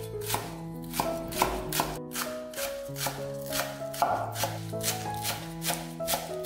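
Chef's knife chopping green onions on a bamboo cutting board: quick, even strokes, about three to four a second, each a sharp tap of blade on wood, over background music.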